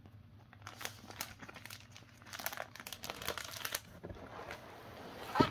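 Clear plastic sleeves of a presentation portfolio crinkling as the pages are turned, in an irregular run of crackles from about a second in until nearly four seconds, followed by one brief, louder sound just before the end.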